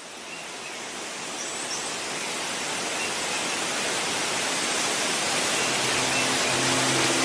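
Waterfall rushing, a steady even roar that grows gradually louder, with a few faint high chirps over it. Music comes in near the end.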